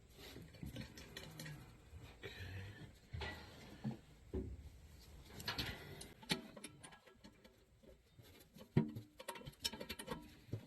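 Hands handling tools and small parts: irregular light clicks, taps and rustling.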